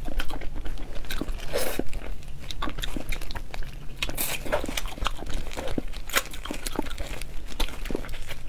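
A person biting and chewing on spicy braised rabbit head, with many small, irregular crunches and clicks.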